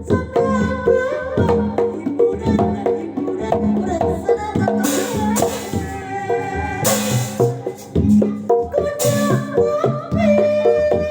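Traditional-style music: a quick, steady hand-drum beat under a wavering melodic line, with three short bursts of bright, hissing cymbal-like crashes in the middle and near the end.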